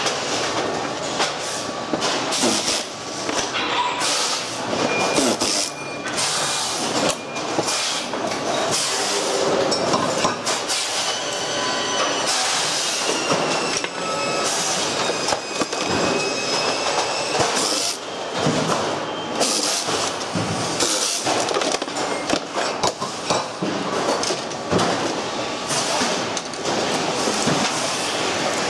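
Continuous clattering and knocking of plastic pachinko-machine frame parts and loose metal screws as the frame is taken apart by hand, over steady workshop noise. A faint high whine comes and goes near the middle.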